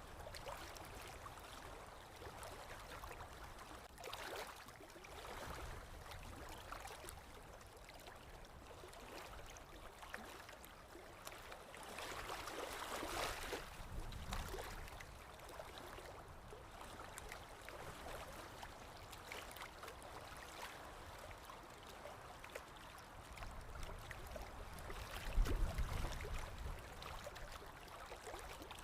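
Flowing water, a stream running and gurgling unevenly, swelling for a couple of seconds about halfway through. A deep low rumble rises briefly near the end.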